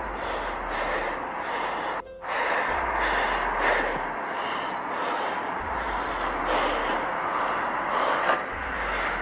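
Heavy breathing close to a phone microphone, swelling with each breath, over rustling handling noise; the sound cuts out for a moment about two seconds in.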